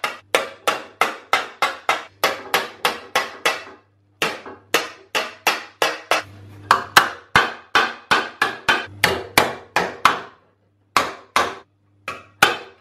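Panel hammer tapping the edge of a sheet-metal panel over a curved dolly, folding a lip round the curve: quick, even metallic taps, about four a second, with brief pauses about four seconds in and about ten seconds in.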